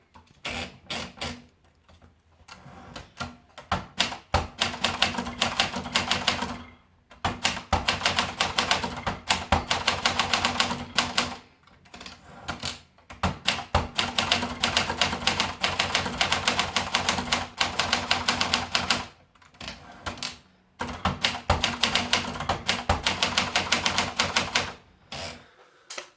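Olympia Splendid 66 manual portable typewriter being typed on: quick runs of key and typebar strikes, each run lasting several seconds, with short pauses between runs.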